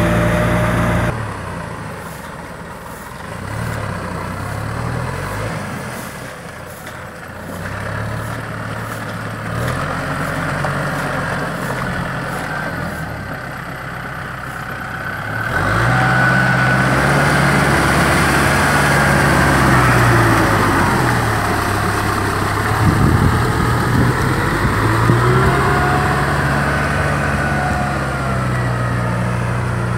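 Kubota M6040 SU tractor's four-cylinder diesel engine running under load while it pulls a rotary tiller through paddy mud, its note rising and falling. It gets louder about halfway through.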